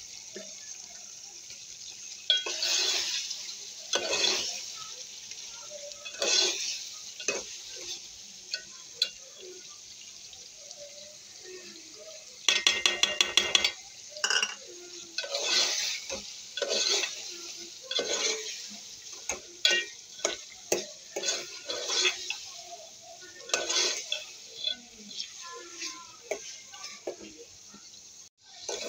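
A metal spoon stirring and scraping wet minced meat and onions in a metal pot, in irregular strokes over a faint steady hiss. A quick run of rapid clinks comes about halfway through.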